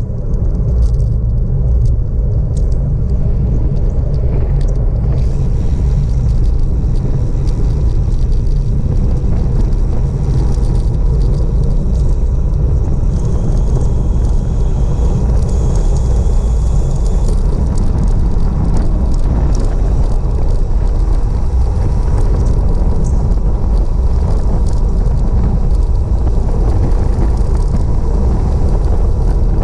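Loud, steady wind rumble buffeting the microphone of a bicycle descending fast, mixed with the noise of tyres rolling on asphalt.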